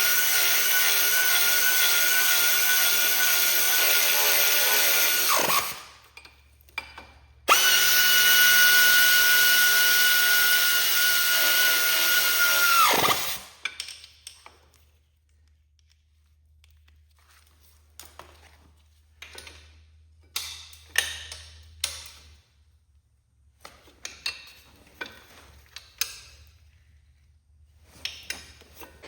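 Cordless power drill or driver spinning at a steady speed in two runs of about five seconds each, winding down as the trigger is released each time, tightening bolts with a 9/16 socket. Scattered clicks and clinks of hand tools on metal follow.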